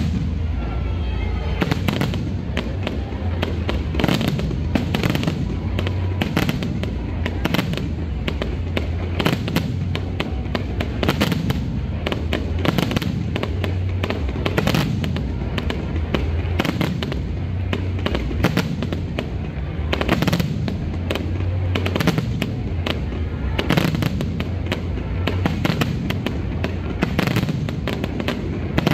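Aerial fireworks display: shells bursting in quick succession, dozens of sharp bangs over a steady low rumble.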